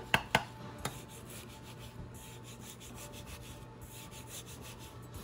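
Kitchen knife slicing a raw Spanish mackerel fillet thin on a wooden cutting board. A few sharp taps of the blade on the board come first, then a quick, soft series of scraping cuts through the flesh.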